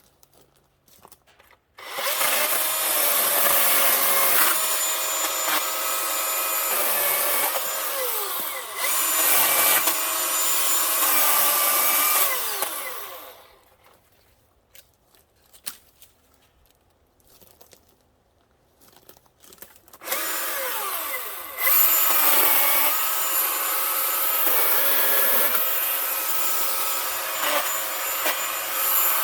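Milwaukee M18 16-inch battery chainsaw cutting wood in two long runs, its electric motor whining steadily over the chain's rasp, stopping for several seconds in between.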